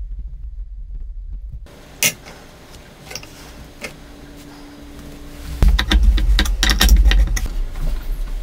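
Handling sounds of a steel rule and small wooden parts on a workbench: a few scattered clicks and taps, then a busy run of clattering knocks and rattles starting about five and a half seconds in.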